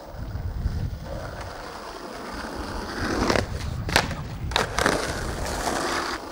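Skateboard wheels rolling over rough asphalt and concrete, a steady rumble, with a few sharp clacks of the board and trucks around the middle as the skater rides the bank and comes back down.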